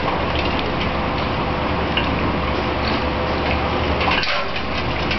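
Water splashing and sloshing with scattered sharp clicks and knocks, as a Great Dane dunks its muzzle in water bobbing for ice cubes.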